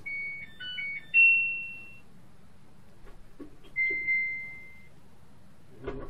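Washing machine control panel beeping: a quick jingle of short electronic notes at changing pitches, ending in a longer tone that fades, then a few seconds later a held beep, sounded again once. This is typical of the machine being switched on and a programme set. It is heard from inside the drum, through the closed door.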